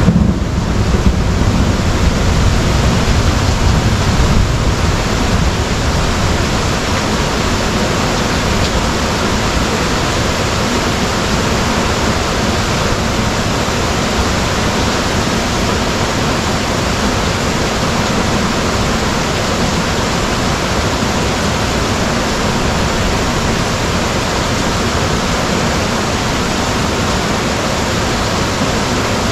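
Heavy rain pouring steadily in a thunderstorm, with the low rumble of thunder dying away over the first few seconds.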